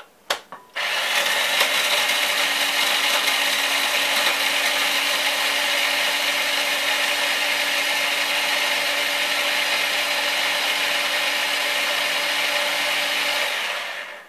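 Two quick clicks, then a small electric food chopper runs steadily for about thirteen seconds, grinding graham crackers to a powder, before stopping near the end.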